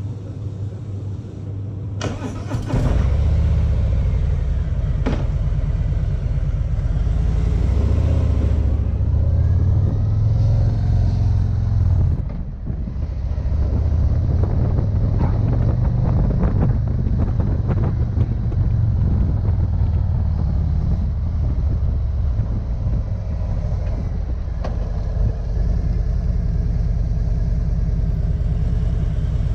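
2019 Harley-Davidson Street Glide Special's Milwaukee-Eight 114 V-twin running, first at low throttle, then pulling away and running louder under way from a couple of seconds in, with a brief drop in level about twelve seconds in.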